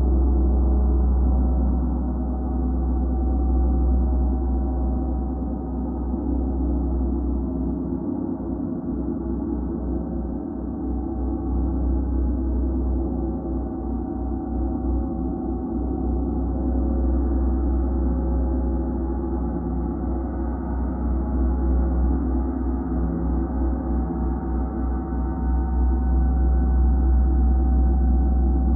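Gongs being played as a continuous gong bath: a dense wash of many overlapping sustained tones over a deep low hum, with no distinct strikes. It eases off a little in the first half and swells again toward the end.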